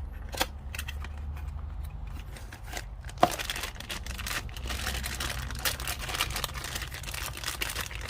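Tool packaging being handled and opened: crinkling and rustling with scattered clicks, a sharp click a little after three seconds, and busier crinkling through the second half.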